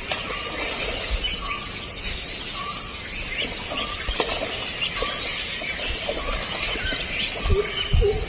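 Outdoor natural ambience: a steady high insect buzz with short chirping calls repeating at several pitches. Two dull thumps come near the end.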